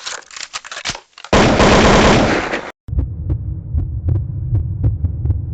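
A run of editing sound effects: a rapid string of sharp cracks like gunfire, then a loud noisy blast lasting about a second and a half from just over a second in. It ends in a low throbbing hum with a sharp tick about two or three times a second.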